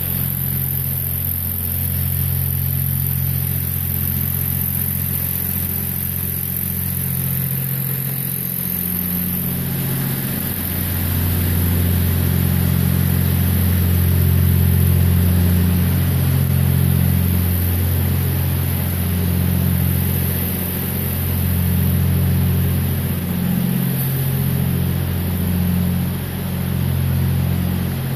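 Truck engine running steadily as the truck moves slowly, a low hum that grows somewhat stronger about a third of the way in.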